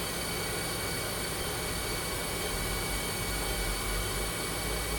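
Spindle of a Southwestern Industries Trak LPM CNC vertical machining center running steadily at 2,000 RPM: a constant whine with a thin high tone over an even mechanical hum.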